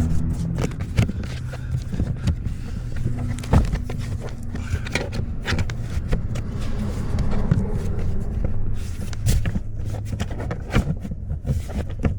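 Interior trim panel being worked and pushed into its seat under the dashboard: a string of irregular clicks, knocks and rustles, over a steady low hum.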